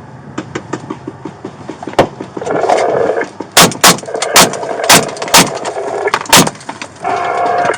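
A burst of gunfire: about seven loud, sharp shots at irregular spacing over some four seconds, among many fainter cracks, with muffled radio chatter in between.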